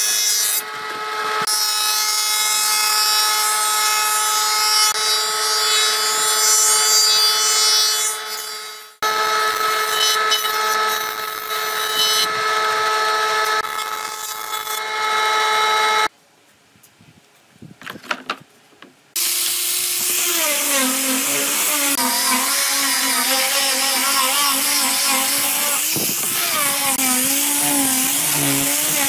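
Woodworking planer running with a steady whine as pine boards are fed through and planed, in two passes with a short break between. After about three seconds of near quiet, an angle grinder with a sanding disc starts and sands a pine board, its pitch wavering as it is pressed into the wood.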